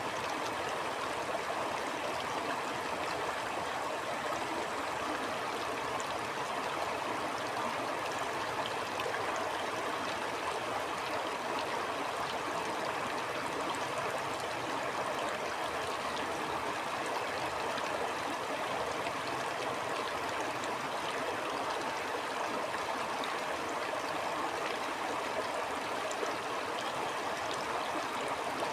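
Stream water flowing and gurgling steadily, an even rushing noise with faint scattered splashes.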